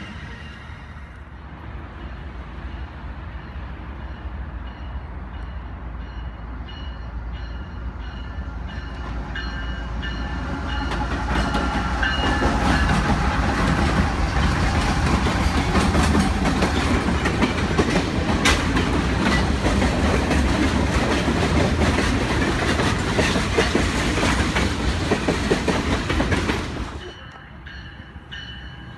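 CN freight train passing close by: a diesel locomotive running, then tank cars rolling past with wheels clacking over the rail joints. The rumble builds for about twelve seconds as the train nears, stays loud as the cars go by, and cuts off suddenly near the end.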